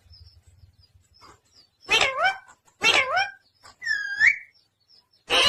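Pet parrot calling: two short squawks about a second apart, then a curling, whistle-like chirp, with another squawk starting at the end.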